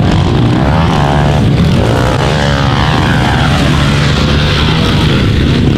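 Several small pit bike engines buzzing and revving up and down as the bikes ride round a dirt track, their pitch rising and falling.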